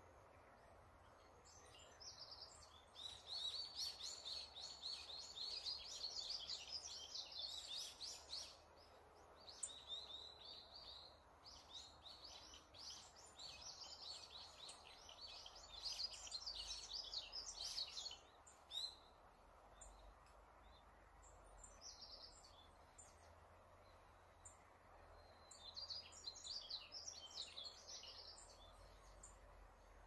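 Small songbirds singing in woodland: long, rapid, high trilling and twittering phrases in three spells with short lulls between, over a faint steady hiss.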